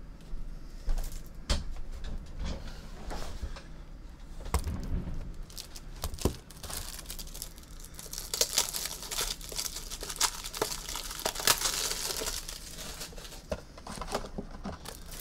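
Plastic wrapping crinkling and tearing as it is handled, with scattered clicks and knocks of small items on a desk. The crinkling grows dense about halfway through, then eases near the end.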